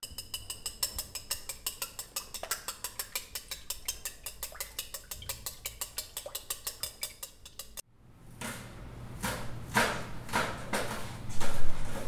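Chopsticks beating eggs in a porcelain bowl: rapid, even clicking of about five strikes a second that stops abruptly. Then a cleaver chopping green onions on a cutting board: a series of heavier knocks, the loudest near the end.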